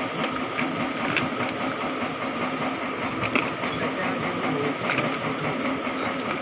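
Paddy-field dewatering pump motor running with a steady drone, a few short knocks over it.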